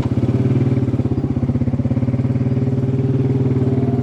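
Farm vehicle's engine running steadily up close, with a fast, even firing pulse.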